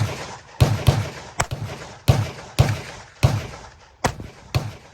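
A rapid string of gunshots at a shooting range, about eight in under five seconds, roughly two a second at uneven intervals. Each shot is a sharp crack with a short echoing tail.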